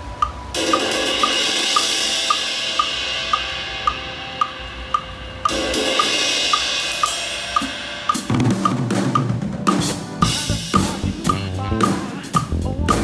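Drum kit playing a gospel song with a steady click keeping time about twice a second: two long cymbal washes over sparse hits, then from about eight seconds in a fuller groove with bass drum, snare and bass guitar.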